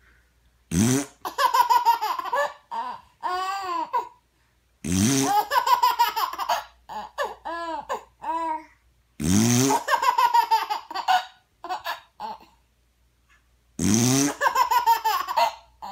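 A baby laughing in runs of choppy giggles, each run set off by a short fart sound; the pattern comes four times, about every four to five seconds.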